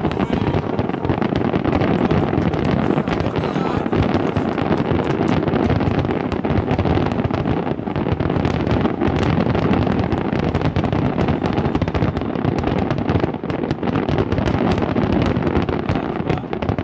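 Fireworks barrage: many shells bursting in close, overlapping succession, a continuous rumble of bangs and crackling with no pause.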